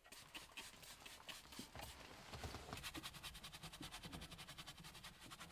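Faint, rapid scratching of a small detailing brush scrubbed back and forth over a wood-grain glove box door, the strokes turning quicker and more even about halfway through.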